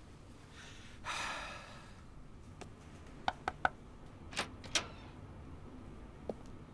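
A man's long weary sigh, then three quick knocks on a door, followed by two sharper clicks as the door is opened.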